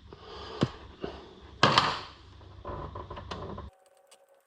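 Clicks, knocks and scraping of hands and tools working on an alternator's terminal in an engine bay, the loudest a sharp knock about a second and a half in. Near the end the sound cuts off suddenly, leaving a faint steady tone.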